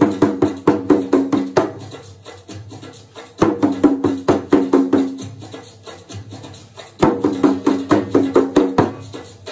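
Hand drum played with the hand in three short phrases of quick, even beats, each about two seconds long with a pause of about a second and a half between them; the drumhead rings under each run of strokes.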